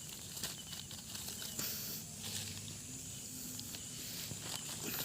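Night insects chirring as a steady high hiss, with a few small clicks and rustles.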